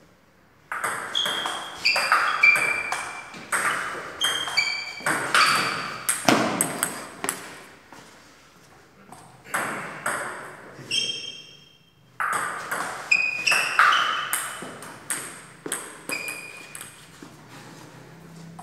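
Table tennis rally: the ball clicking off the paddles and bouncing on the table with short ringing pings, in three runs of quick hits with brief pauses between.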